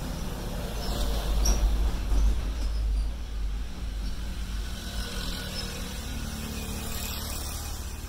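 Deep rumble that swells about a second in and eases off after a few seconds, with a few faint clicks of spade connectors being pushed onto the horn's terminals.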